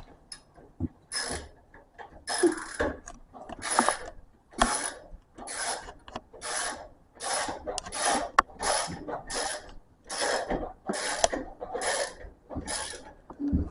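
Ratchet wrench tightening engine bolts: a steady run of short ratcheting strokes, about two a second.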